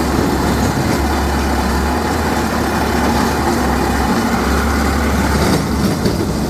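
Engine of a drilling rig running steadily under load, with a deep low hum that comes and goes.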